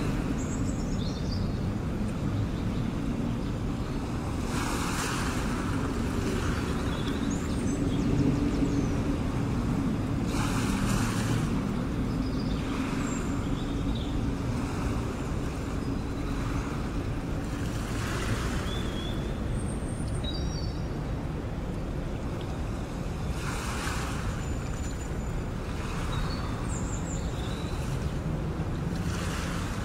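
Surf, with waves washing in about every five to six seconds over a steady low rumble. A few short, high chirps sound between the swells.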